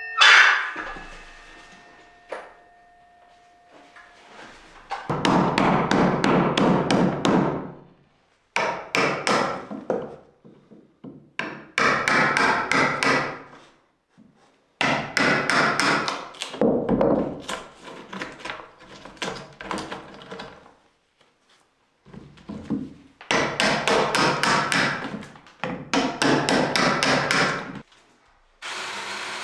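Hammer striking wood in quick runs of blows, several a second, each run broken by a pause of a second or so. There is one loud knock at the very start.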